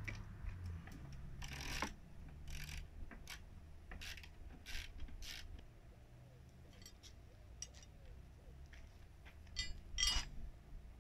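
Bolts on a Super Soco TC Max's rear grab-rail frame being unscrewed with a size 6 Allen key: a run of faint, short scraping clicks as the tool turns. About ten seconds in come louder metal clinks as the loosened aluminium rail is lifted off.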